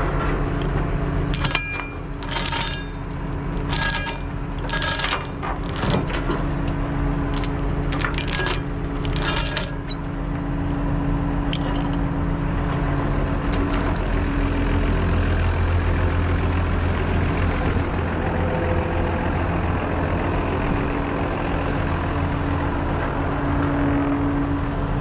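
Steel tie-down chain clinking and rattling as it is handled against a steel trailer frame, about a dozen sharp metallic clanks in the first ten seconds, over an engine idling steadily that grows a little louder in the second half.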